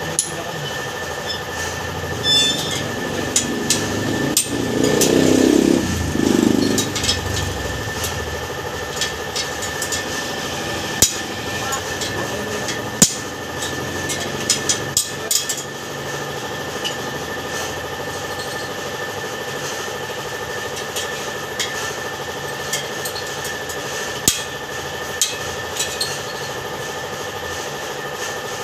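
Scattered light taps and clicks of hand tools working on a dented motorcycle wheel rim, over a steady background hum. A louder low sound swells in from about four to seven seconds in.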